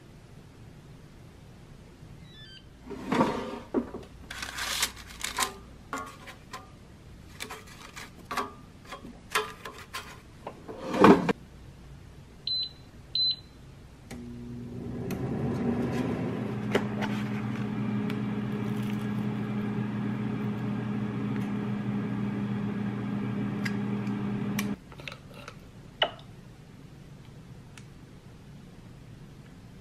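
Scattered knocks and clatter of things being handled, then two short high beeps from an air fryer's touch panel as it is set. The air fryer's fan then starts with a steady hum that runs about ten seconds and cuts off suddenly.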